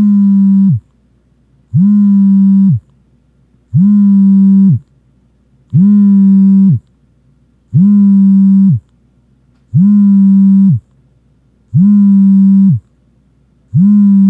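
Phone vibrating: a loud, low buzz about a second long that repeats every two seconds, seven times in a row. Each buzz rises in pitch as it starts and drops as it stops.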